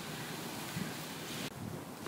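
Wind on the microphone over the steady wash of sea waves. The high hiss drops off abruptly about one and a half seconds in.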